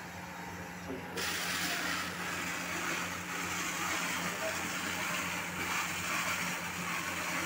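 A turntable stretch wrapping machine running a wrap cycle: a steady hiss comes on abruptly about a second in, over a low steady hum.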